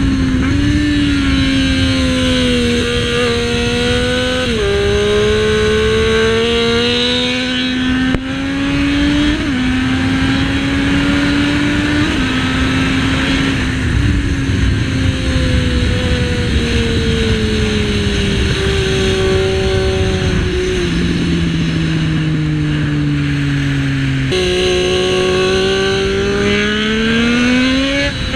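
Triumph Street Triple 675's inline three-cylinder engine with a custom exhaust, heard from on board at track speed: the note climbs under hard acceleration and steps down at each upshift, then falls away as the bike slows for a corner before climbing again near the end. The engine is heard over a steady rush of wind noise.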